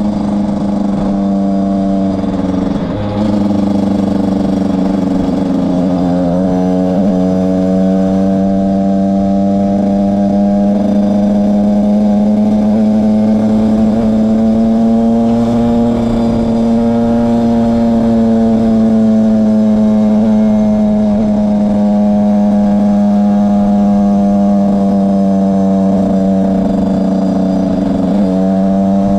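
Beta RR 50cc enduro motorcycle's two-stroke engine running at steady road-riding revs. Its pitch drops about three seconds in, climbs slowly through the middle and drops again near the end.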